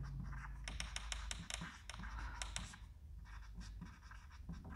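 Marker pen writing on a whiteboard: faint, quick scratchy strokes coming unevenly as a line of words is written.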